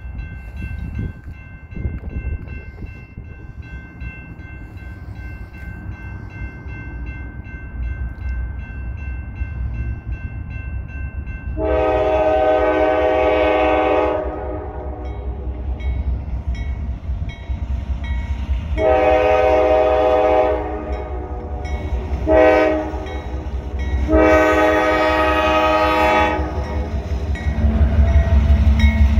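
Railroad crossing bell ringing as a train approaches. Then the diesel freight locomotive's multi-chime air horn sounds the grade-crossing signal of long, long, short, long blasts. Near the end the locomotive's engine rumbles louder as it reaches the crossing.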